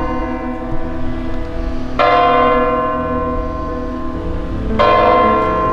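A church bell tolling slowly, struck twice, about two seconds in and again near the end, each stroke ringing on and fading.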